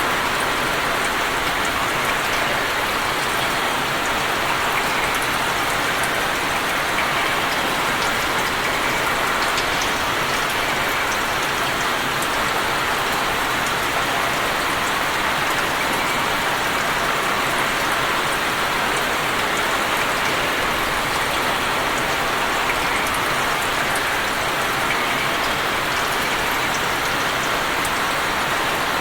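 Steady rain falling on open water, a constant hiss of many drops with fine scattered patters on the surface.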